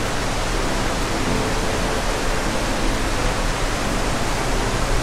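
Steady rush of water from the artificial waterfall and stream of an otter exhibit.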